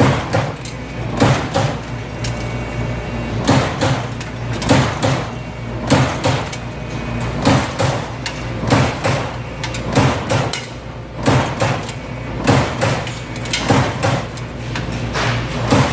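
Amada Aries 245 CNC turret punch press running: sharp punch strikes come about once a second at uneven spacing, over a steady low machine hum.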